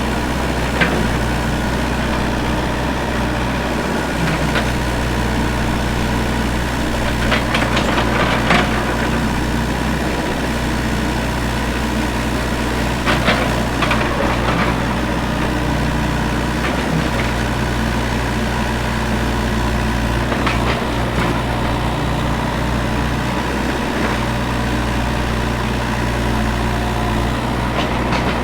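Excavator's diesel engine running steadily with a deep drone while it digs, with scattered sharp metallic clanks and scrapes from the bucket and linkage, several bunched together a third of the way through and again near the middle.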